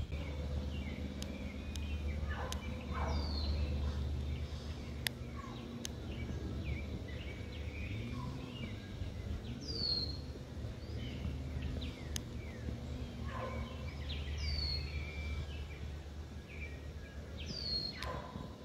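Small birds chirping and calling in the trees, with a short, high, falling note every few seconds, over a steady low background rumble.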